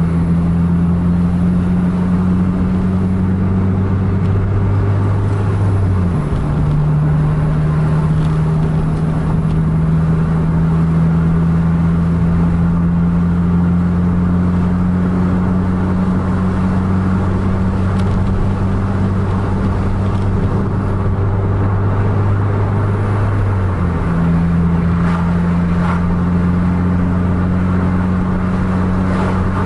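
Vehicle engine droning steadily at road speed over tyre and road noise. The pitch drops abruptly about six seconds in, then climbs slowly, and shifts again about twenty-four seconds in, as with gear changes.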